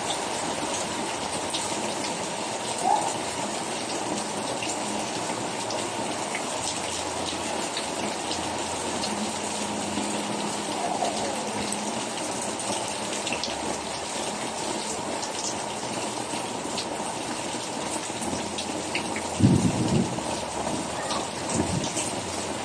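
Rain falling steadily, a continuous hiss with scattered drop ticks, and a few brief louder knocks near the end.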